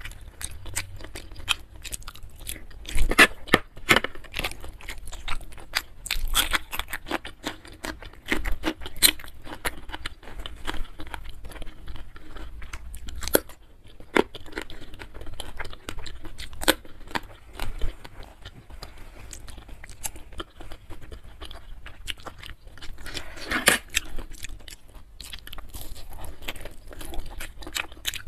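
Close-miked chewing and biting of food, with irregular crunches and mouth clicks; the loudest crunches come about three seconds in and again near the end.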